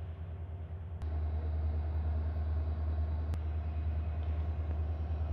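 Engine idling as a steady low drone that gets louder about a second in, with a sharp click at that point and another about three seconds in.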